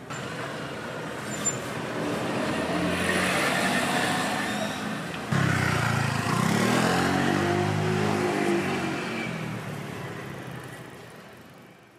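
Passing street traffic, with a motor vehicle's engine coming in suddenly about five seconds in and its pitch rising and then falling. The sound fades out near the end.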